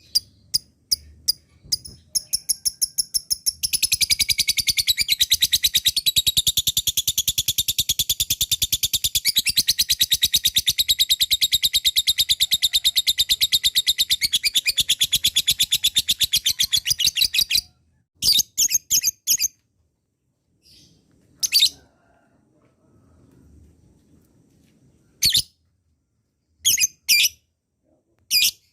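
Lovebird chattering in a long, rapid, unbroken series of high chirps, the so-called ngekek panjang. It opens with a few separate chirps, runs on for about fourteen seconds, stops abruptly, then a few single chirps follow.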